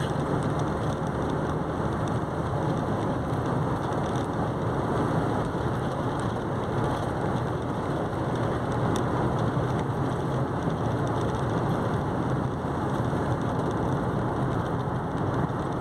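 Steady road noise heard inside a car cruising on an asphalt highway: tyre rumble with a low engine hum underneath, at an even level throughout.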